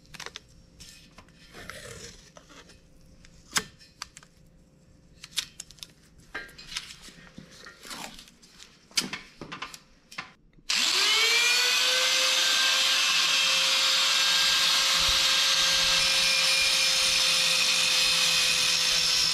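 Angle grinder with a cut-off wheel switched on about ten seconds in, spinning up with a quickly rising whine and then running steadily at speed. Before it starts there are only scattered light clicks and taps.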